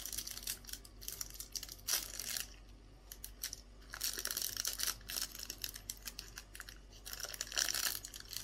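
Clear plastic cellophane wrapper on a pack of trading cards crinkling and tearing as gloved hands pull it open, in spells of crackling with a quieter stretch around three seconds in.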